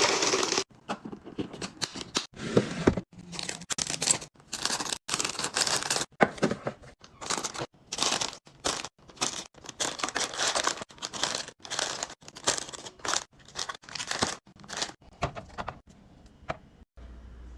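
Food packaging being handled: plastic and paper wrappers crinkling and tearing in a string of short bursts, broken by abrupt cuts.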